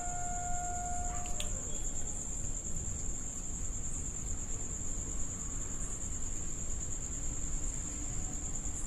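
Crickets trilling in one steady, unbroken high note over a low background rumble. A separate held lower tone stops about a second in.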